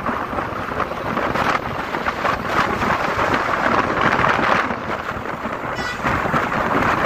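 Highway traffic noise: a steady rush of engine, tyre and wind noise, with wind buffeting the microphone. A brief faint tone, like a distant horn, shows near the end.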